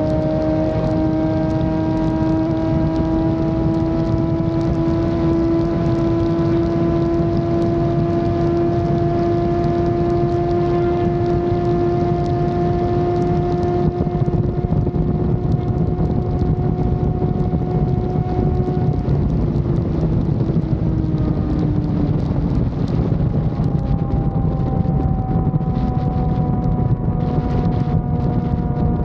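Yamaha FZ6 Fazer 600's inline-four engine running at steady, fairly high revs on the move, its note climbing slowly, then dropping over a couple of seconds about two-thirds of the way through and holding steady again. A constant rush of wind and road noise runs underneath.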